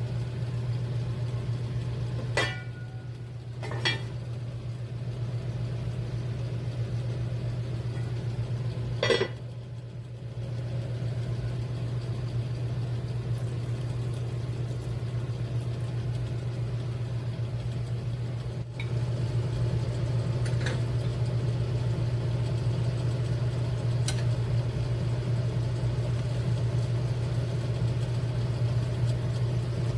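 Steady low hum of a running kitchen appliance motor, a little louder in the second half. Over it come a few sharp clinks of utensils against cookware: two close together about two and four seconds in, a louder one about nine seconds in, and fainter ones later.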